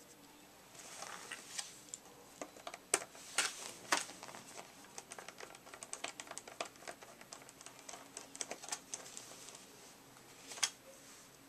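Irregular small clicks and taps of hands working the plastic housing, small parts and screws of a Swivel Sweeper during disassembly. A few louder, sharper clicks come about three to four seconds in and again near the end.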